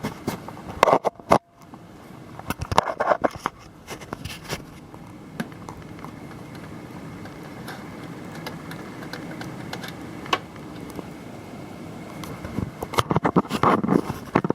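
Knocks and rustling from handling and moving about, over a steady low hum, with another burst of handling noise near the end.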